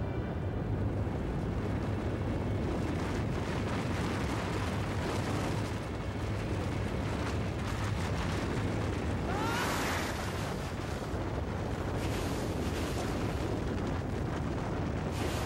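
Avalanche: a mass of snow sliding down a forested mountainside with a steady low rumble. A short rising sweep is heard about nine and a half seconds in.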